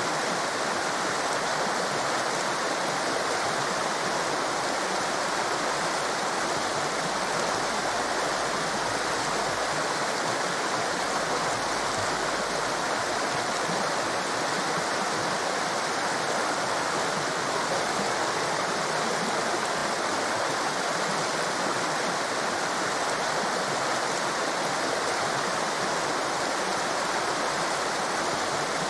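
Torrent of rushing water: a steady, unbroken rush with no changes.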